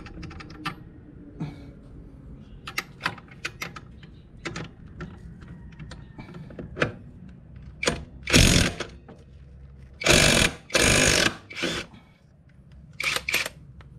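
Cordless impact wrench hammering in short bursts on the clutch bell nut of a Yamaha NMAX scooter's CVT, undoing the nut: one burst past the middle, two longer ones close together, and a short double burst near the end. Before the bursts, light metallic clicks and taps as the socket and parts are handled.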